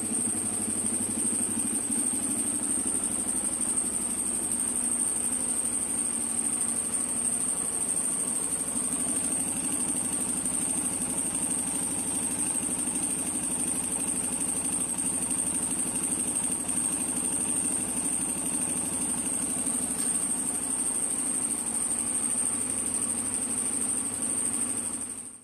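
Honda XR250's single-cylinder four-stroke engine idling steadily, with a steady high-pitched whine above it.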